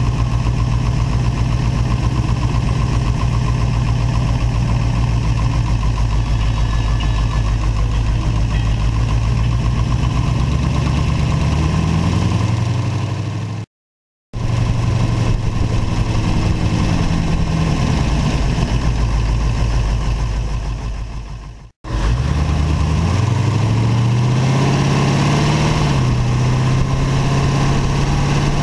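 Vintage hot rod's engine running at low speed with a steady low beat, then revving up as the car pulls away and accelerates, its pitch climbing in several rising sweeps. The sound cuts out briefly twice, about halfway through and again about three quarters through.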